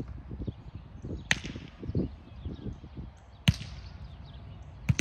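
A volleyball being hit by hands during a rally: three sharp slaps, about a second in, midway and near the end, the last two the loudest, over softer low thuds of players moving on the court.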